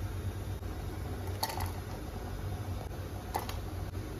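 Ingredients (dried red chillies, garlic, ginger) dropped into a stainless-steel mixer-grinder jar, giving two light knocks, one about a second and a half in and one a little after three seconds, over a steady low hum.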